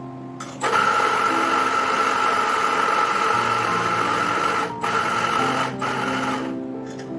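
Espresso machine pump running with a steady mechanical buzz. It starts about half a second in, breaks off twice very briefly, and stops near the end, over soft background music.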